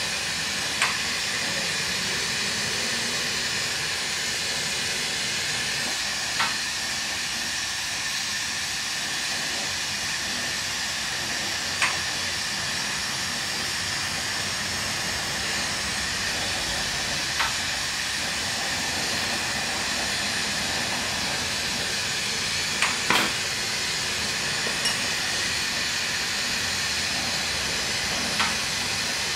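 Lampworking bench torch flame hissing steadily as glass is melted in it, with a few light clicks every several seconds.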